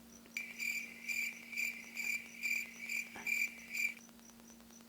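Cricket chirping sound effect played back: evenly repeated chirps, about two to three a second, that start suddenly and cut off about four seconds in.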